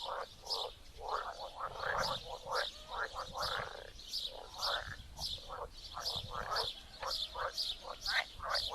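Chorus of pond frogs croaking, many short calls overlapping several times a second, with a quick run of higher repeated notes above them.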